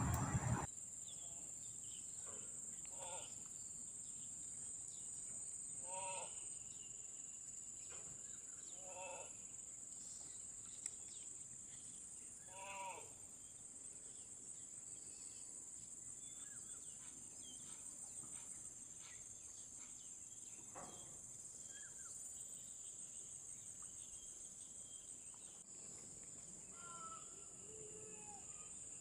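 Faint outdoor ambience: a steady high-pitched insect drone, with short animal calls every few seconds, most of them in the first half.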